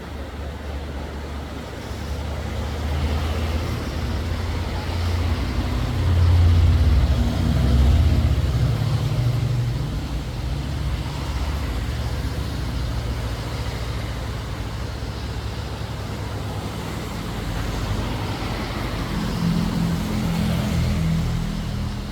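An engine running, its pitch and loudness rising and falling, loudest about six to eight seconds in and again near the end.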